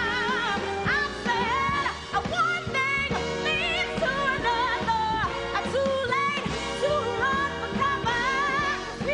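Female soul-pop vocalist singing over band accompaniment: a held note with wide vibrato ends just after the start, then wordless runs and ad-libs that glide up and down in pitch.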